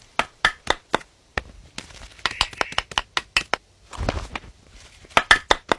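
Acorn woodpecker hammering acorns into holes in a dead oak granary tree: a run of sharp, irregular taps, several a second, with a short lull about four seconds in and a quick cluster of taps near the end.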